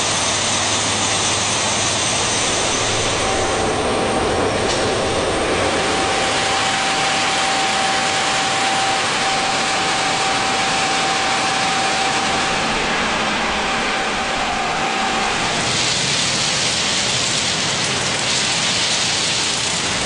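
Train running: a steady, loud rushing rumble, with a thin steady tone held from about three seconds in until about fifteen seconds in.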